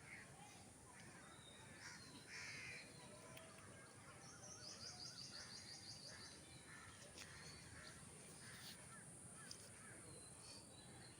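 Faint background birds calling: scattered short chirps, with a rapid trill about four seconds in.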